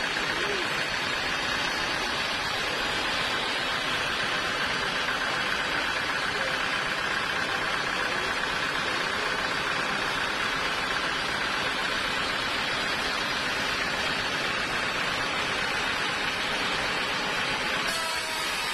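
Sawmill machinery running steadily: an even mechanical whir with a faint whine, changing slightly near the end.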